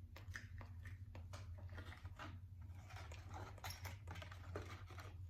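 Close-miked eating sounds: irregular small clicks and crackles of chewing chicken nuggets, over a steady low hum.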